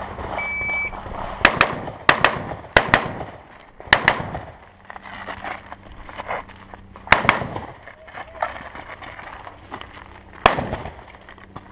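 A shot timer beeps once, then an AR-style carbine fires in quick pairs of shots: four pairs within about three seconds, then longer pauses of about three seconds before each of the later pairs.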